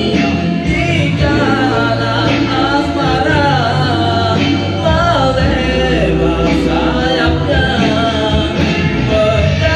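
A solo singer singing a slow melody into a microphone over backing music.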